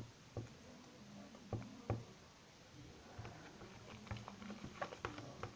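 Freshly mixed glue-and-shaving-foam slime being stirred, giving scattered soft, wet clicks: a few in the first two seconds, then a quicker run of small ticks over the last couple of seconds.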